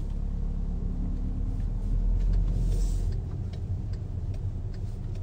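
Car being driven, heard from inside the cabin: a steady low engine and road rumble with a few faint ticks.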